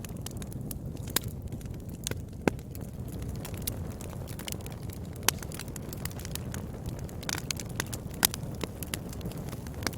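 Wood fire burning: irregular sharp crackles and pops over a low, steady rumble, with a few louder pops about a second in, near the middle and toward the end.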